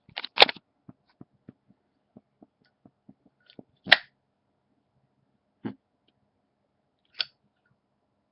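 Sharp metallic clicks and clacks from a Zippo lighter being handled: loud ones about half a second and four seconds in, softer ones near six and seven seconds, with faint ticks between.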